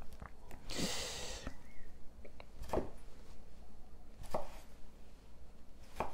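Kitchen knife cutting cherry tomatoes on a wooden chopping board: four sharp knocks of the blade on the board, about one and a half to two seconds apart, with a brief hiss near the first knock.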